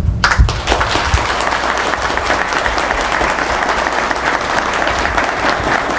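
Audience clapping, starting right after the end of a recited tribute and keeping up steadily.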